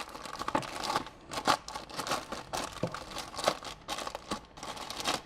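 Irregular crinkling and rustling as a small parcel's packaging and a thin, stiff mica sheet (a microwave waveguide cover) are handled, with a few sharp crackles.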